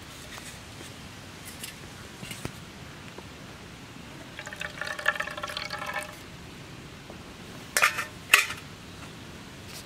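Lemon juice poured from a small steel bowl into a large aluminium bowl of curd, a short trickling pour that lasts under two seconds, after a few faint clicks. Near the end come two sharp metallic knocks.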